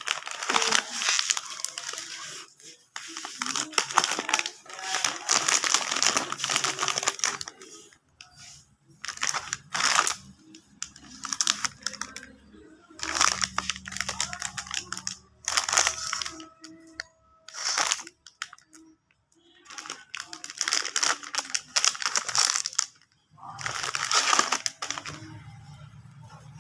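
Cake packaging being handled and opened: crinkling and tearing in irregular bursts with short pauses between them.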